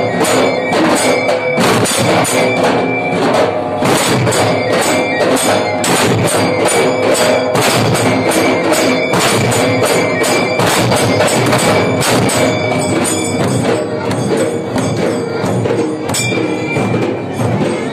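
Large ensemble of Dhangari dhols beaten together in one unison rhythm, a dense unbroken stream of fast strokes, with a metallic ringing over the drums.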